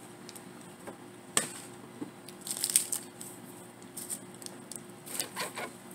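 A foil candy-bar wrapper crinkling in short, scattered bursts as a chocolate-dipped wafer bar is unwrapped and bitten, with crisp crunches from the wafer.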